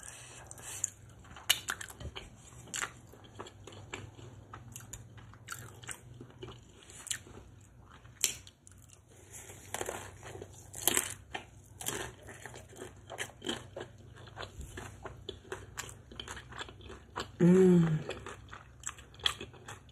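Biting and chewing a crispy fried egg roll filled with fufu and dipped in egusi soup: many short, crisp crunches and mouth clicks, irregularly spaced. A brief hummed "mm" comes near the end.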